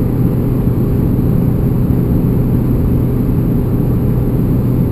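Steady engine and road rumble inside a moving car's cabin, with a constant low engine drone.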